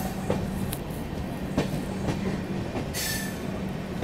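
The Mumbai Janata Express passing by, its wheels clacking over the rail joints over a steady low hum, with a short hiss about three seconds in.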